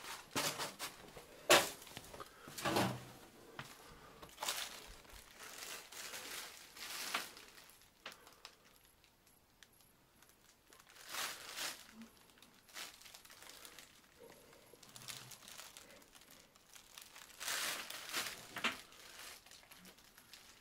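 Footsteps crunching and crinkling over litter and rubble, in short runs of several steps with pauses between; the sharpest crunch comes about a second and a half in.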